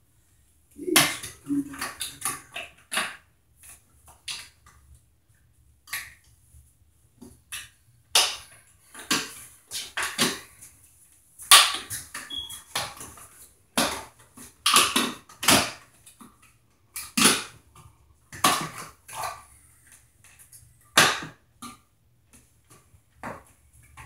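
Irregular scrapes, rustles and clicks of hands working wires and a blue plastic old-work electrical box in a drywall opening, in short uneven bursts.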